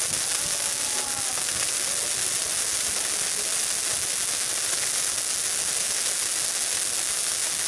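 Pyrotechnic fountains and sparklers spraying sparks, giving a steady hiss.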